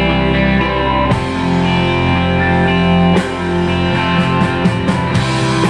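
Live rock band playing: electric guitars and bass hold chords over drums, the chord changing about a second in and again about three seconds in, with drum hits coming through over the second half.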